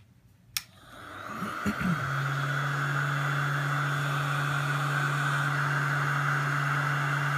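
Hot-air frame heater switched on with a click, its blower spinning up over about a second and then running steadily, with a constant low motor hum under a rush of air.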